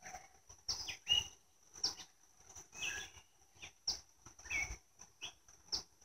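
Birds chirping in short, repeated downward calls over a steady high-pitched insect trill, with a few light clicks and knocks of wooden hive frames being handled.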